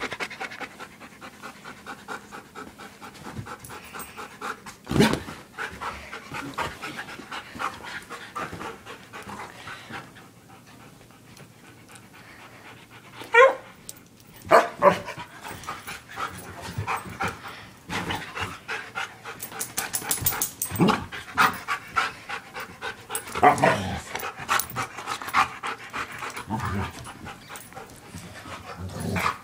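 Dogs, a husky among them, panting hard during rough play-wrestling, with several short, sharper and louder sounds, the loudest about 13 and 15 seconds in.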